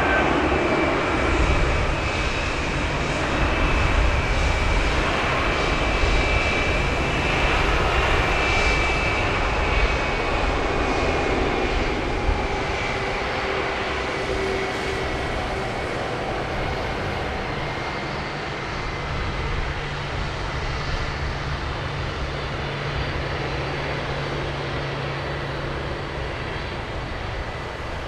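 Airbus A321-231's IAE V2500 turbofans whining at low power while the airliner taxis after landing. A high whine over a steady roar slowly drops in pitch, and the sound fades gradually as the aircraft moves on.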